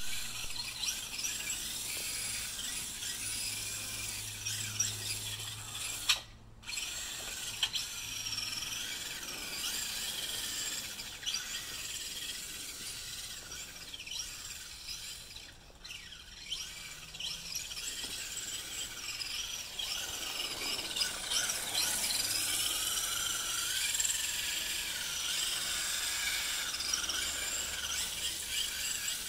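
Radio-controlled Carnage prerunner truck driving and drifting on pavement: a high-pitched electric motor and gear whine that rises and falls with the throttle.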